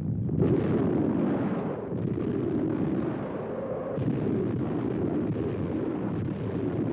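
Artillery barrage: a continuous heavy rumble of shell explosions, with sharper blasts about half a second in, at two seconds and at four seconds.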